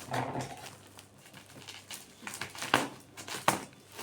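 Cardboard keyboard box being cut and worked open with scissors: a brief rustle at the start, then scattered sharp clicks and snaps, the two loudest near the end.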